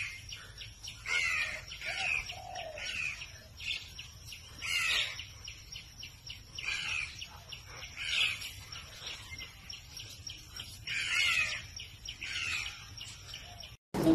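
Birds chirping: short high calls repeated every second or so.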